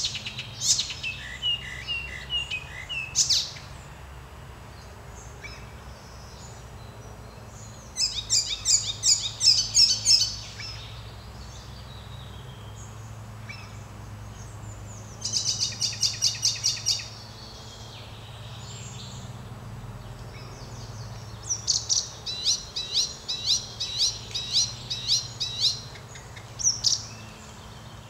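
Icterine warbler singing: bursts of fast, repeated high notes separated by pauses of several seconds, over a steady low background hum.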